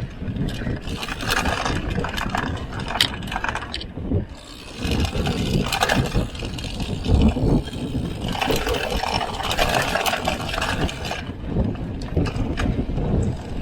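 Mountain bike riding over a rough dirt trail: tyres scraping and crunching over the ground with the bike rattling, over a constant low rumble.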